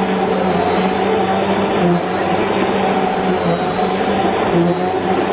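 Bissell PowerForce Helix Turbo upright vacuum cleaner running steadily as it is pushed over a rug: a constant high whine over a motor hum that wavers slightly.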